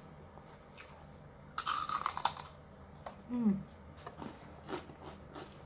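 Crunching bites into a crisp fried kropek cracker, loudest for about half a second near two seconds in, then chewing, with a short falling 'mm' from the eater.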